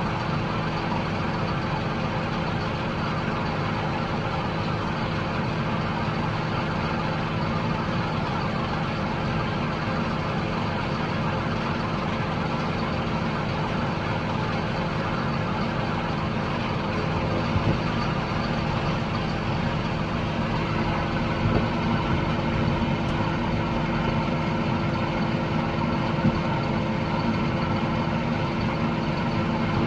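Heavy harvest machinery running steadily under load: a constant engine drone with a few light knocks in the second half.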